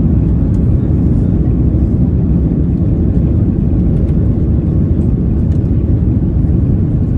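Airbus A330-900neo's Rolls-Royce Trent 7000 engines and airflow heard from inside the economy cabin during takeoff: a loud, steady low rumble.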